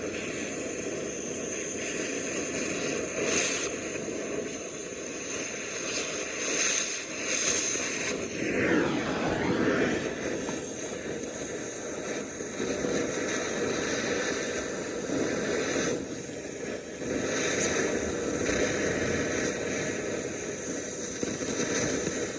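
Gas torch flame running with a steady roar, heating or cutting a bearing race off a combine final drive axle shaft.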